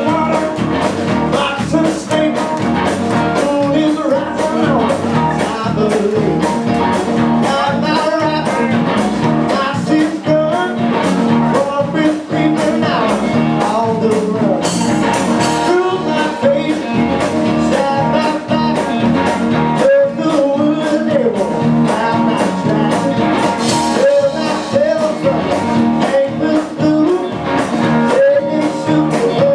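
Blues-rock band playing live: electric guitar, resonator guitar, bass guitar and drums, with a singer's voice over the band.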